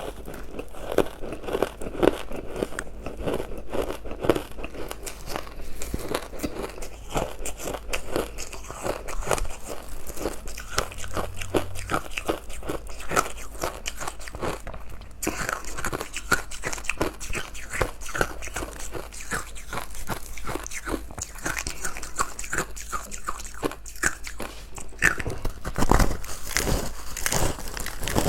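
Close-miked biting and chewing of powdery ice dusted with matcha powder: a dense, continuous run of soft crunches and crackles.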